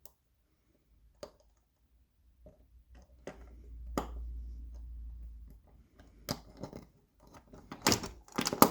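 Scattered small metal clicks and scrapes of a handmade ring shim being worked into a stiff handcuff. The clicking and metallic rattling get louder and more frequent near the end as the cuff is worked open.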